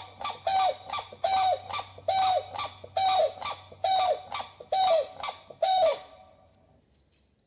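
An animal calling in a rhythmic series of harsh calls, a little more than one a second with shorter notes between, that stops about six seconds in.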